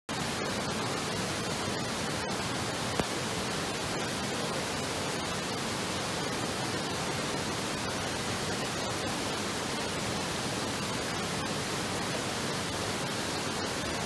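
Steady rushing of a small waterfall and mountain stream, an even hiss with a few faint clicks, starting abruptly.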